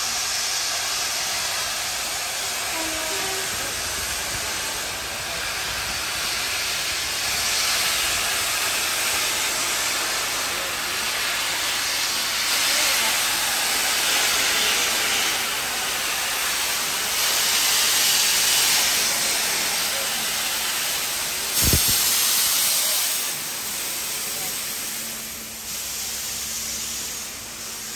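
Steam locomotive hissing as steam escapes, the hiss swelling and easing every few seconds, with one sudden thump about three quarters of the way through.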